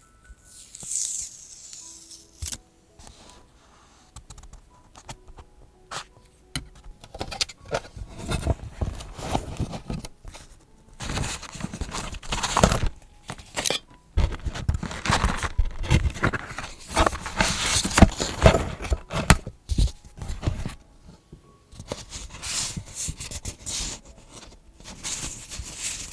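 Paper being handled for journaling: irregular rustling, scraping and tearing of paper in bursts, with brief pauses.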